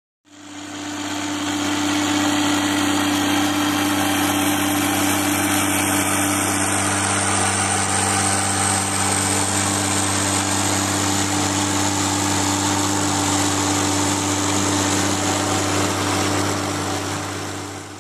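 Tractor and New Holland 790 pull-type forage harvester running steadily while chopping standing corn and blowing it into a forage wagon: a constant machine drone with a steady hum under a broad rushing noise. It fades in over the first couple of seconds.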